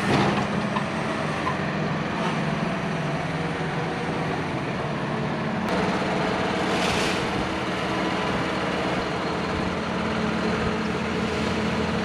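Tractor's diesel engine running steadily, with a brief hiss about seven seconds in.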